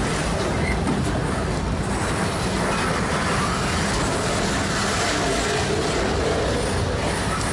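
Freight train cars rolling past close by: a steady rumble of steel wheels on the rails.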